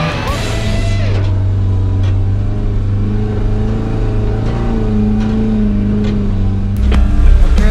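Small off-road 4x4's engine running steadily while driving along a dirt trail, heard from inside the cabin, its pitch rising and falling slightly. Near the end come several louder thumps and knocks.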